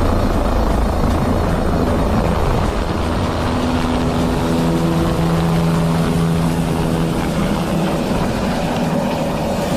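Helicopter lifting off close by: heavy low rotor thumping and the rush of rotor wash buffeting the microphone. The low thumping eases after the first second or two as it climbs away, leaving a steady engine whine and rushing noise.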